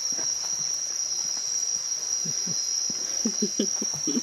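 Night rainforest insects, crickets among them, singing in a steady high-pitched chorus.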